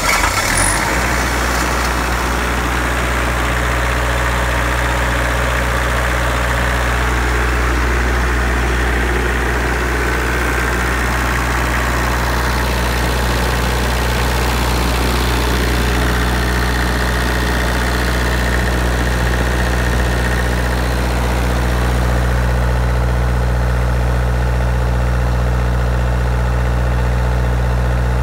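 Kubota diesel engine of a 15 kW Powertech standby generator set settling into a steady run at its governed 1800 rpm within the first second after starting. It runs evenly with no change in speed.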